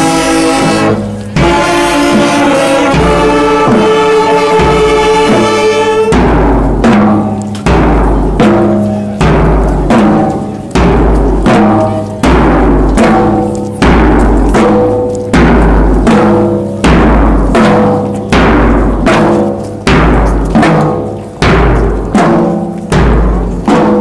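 A marching brass band playing live. It opens on held brass chords, and about six seconds in it settles into a steady march beat, with a bass drum striking about once a second under the horns.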